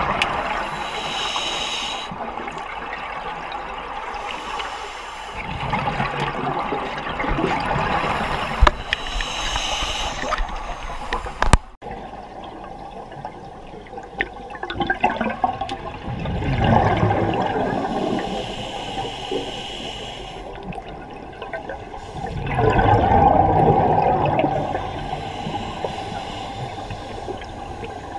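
Underwater scuba breathing: regulator exhalations releasing rushing, gurgling bursts of bubbles every several seconds, with a hiss between them. A sharp click about halfway through.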